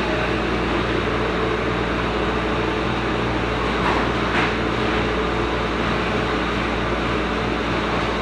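Manitowoc ice machine running: a steady compressor hum under the even rush of its fan.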